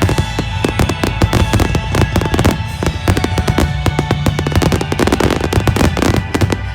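Fireworks finale barrage: aerial shells bursting and crackling in rapid, overlapping succession, with no gap between the bangs.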